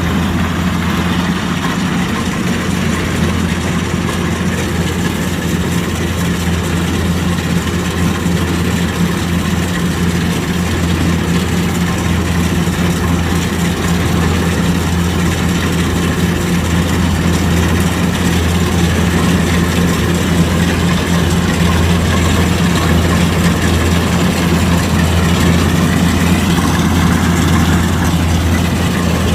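Kubota DC-105X combine harvester running steadily, its diesel engine giving a deep, even drone.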